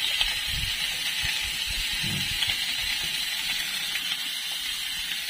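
Steady sizzling hiss of whole fish grilling on a flat pan over a portable butane gas stove.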